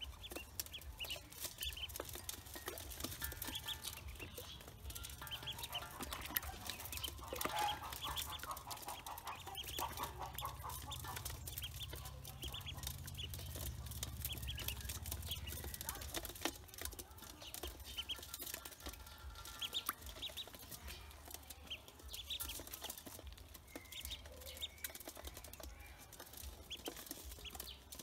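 A group of ducklings peeping, many short high peeps overlapping one another throughout, with scattered light clicks as they peck feed off the metal basin.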